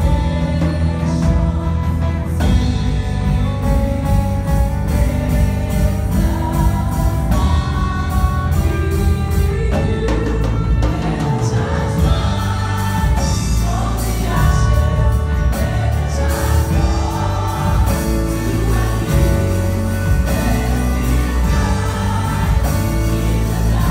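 Church choir of women's voices singing a gospel worship song, amplified through the hall's speakers, with band accompaniment and a strong, steady bass.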